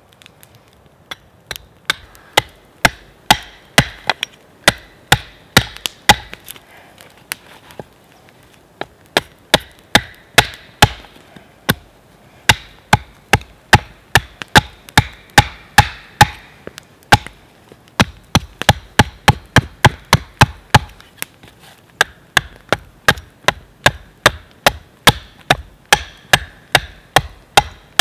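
Hans Karlsson carving axe hewing a split oak blank propped on a log, one sharp chop after another at about two a second, with a couple of short pauses.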